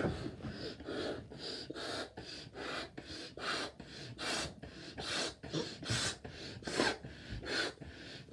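A person blowing up a large 24-inch latex balloon by mouth: short, sharp breaths come in an even rhythm, roughly one a second, as he gasps in air between puffs into the balloon.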